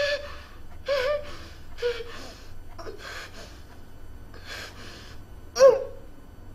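A woman sobbing hard: gasping breaths and short, strained cries about once a second, the loudest near the end.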